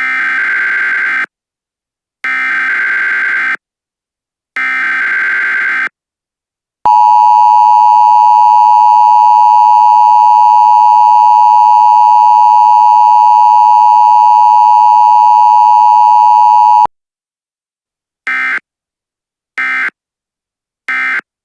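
Emergency Alert System tones. First come three SAME header data bursts, each about a second long. Then the loud two-tone attention signal (853 and 960 Hz) holds steady for about ten seconds, and three short end-of-message data bursts follow.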